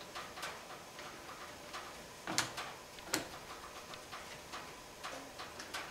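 Small metal clicks and ticks from a metal lathe's carriage as the half nuts are engaged on the lead screw at different threading-dial marks, with two sharper clicks about two and a half and three seconds in.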